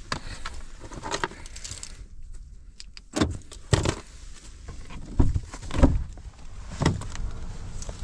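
Handling noise inside a car cabin: a few sharp knocks and clunks with rustling as a dog shifts about. A rear car door is unlatched and pushed open near the end.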